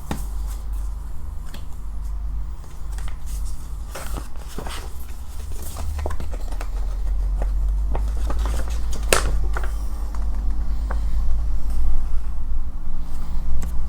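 Paper and packaging being handled, likely a folded poster being opened: scattered rustles, taps and clicks over a steady low hum.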